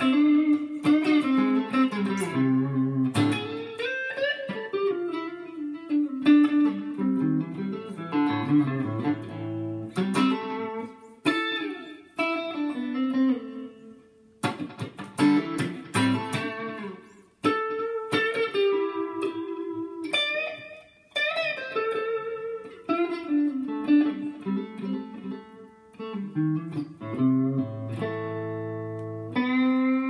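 Strat-style electric guitar with a '63-style single-coil neck pickup, played clean through a Fender Deluxe Reverb amp model with a touch of Klon-style boost, compression and delay. Picked notes and chords, with short pauses between phrases.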